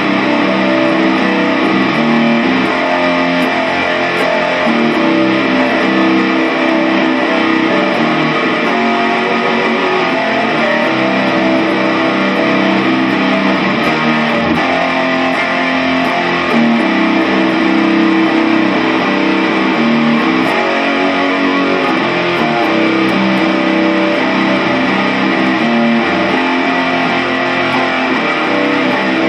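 Guitar music playing continuously, recorded on a phone's microphone.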